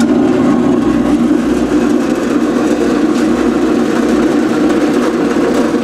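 Carolina HD-10 horizontal/vertical band saw running steadily, its 3/4 hp single-phase motor driving the blade through the gearbox, just after being switched on.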